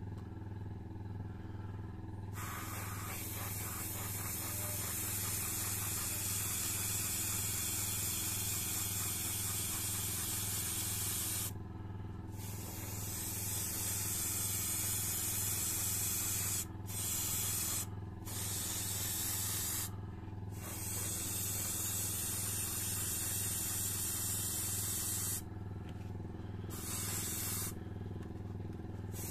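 Harder & Steenbeck Evolution airbrush spraying satin varnish in long hissing bursts, the first starting about two seconds in and several shorter ones following with brief breaks between. An air compressor hums steadily underneath throughout.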